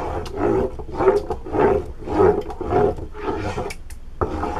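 Wooden spoon stirring a liquid soap mixture in a pot, a swishing scrape with each stroke, about two strokes a second.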